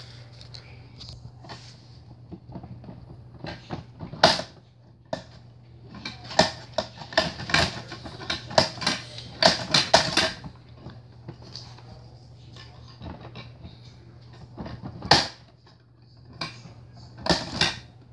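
Hard plastic toy garbage truck being worked by hand: irregular plastic clicks, knocks and rattles, a dense run of them through the middle and a few sharp single knocks later, over a steady low hum.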